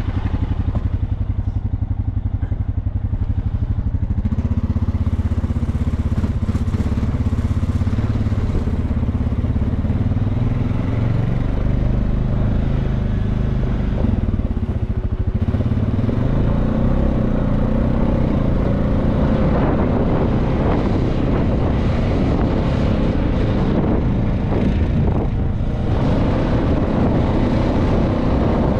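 A motor vehicle's engine running steadily. It picks up about four seconds in, and its pitch shifts slowly after that.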